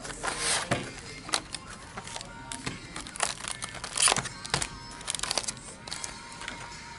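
Cardboard and crinkling foil wrapping being handled as a trading-card box is unpacked, with irregular sharp crackles and rustles, the loudest about four seconds in.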